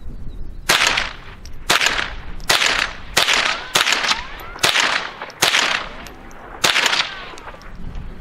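Henry AR-7 .22 LR semi-automatic survival rifle firing eight shots at a steady pace, about one a second, emptying its eight-round magazine.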